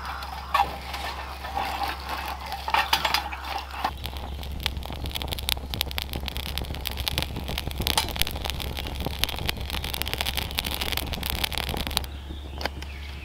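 Kindling fire crackling and popping inside a small folding steel wood stove as it catches, with a few louder snaps in the first seconds. After about four seconds the crackle turns dense and rapid, then thins near the end.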